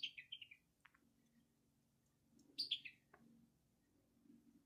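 A songbird singing: a short phrase of quick notes stepping down in pitch, heard twice, about two and a half seconds apart, over quiet surroundings.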